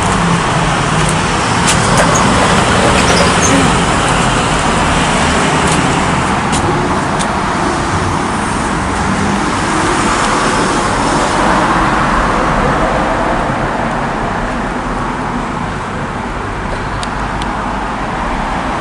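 Steady roar of road traffic, an even rushing noise with a few faint clicks.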